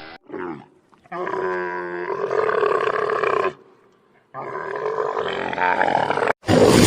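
Two long, loud animal roars, each about two and a half seconds, with a short call just before them and a sudden loud sound near the end; the sounds start and stop abruptly, as spliced clips do.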